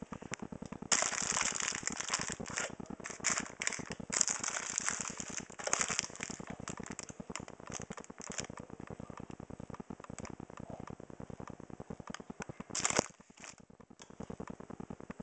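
Plastic packaging of a shop-bought pork pie crinkling and crackling as the pack is handled and turned close to the microphone, in loud bursts about a second in, again around four to six seconds, and once briefly near the end. A fast, steady patter of small clicks runs underneath.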